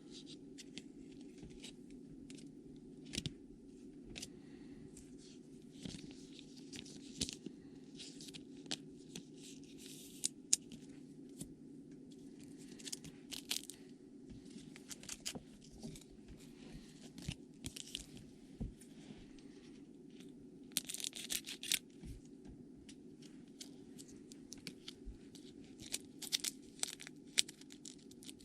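Trading card pack wrappers being torn open and crinkled, and cards being handled. It comes as irregular scratchy rustles and clicks over a steady low hum.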